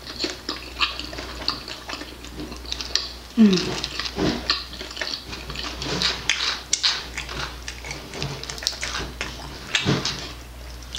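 Close-up chewing and lip-smacking on crispy barbecue chicken wings: many small wet clicks and crunches, with a short falling hum about three and a half seconds in.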